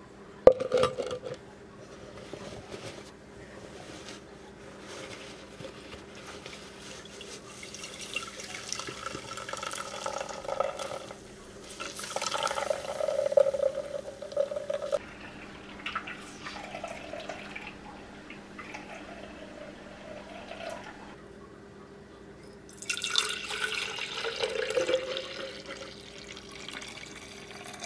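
Water running from a kitchen tap and being poured, in uneven spells, with clicks and knocks of kitchen handling and a faint steady hum.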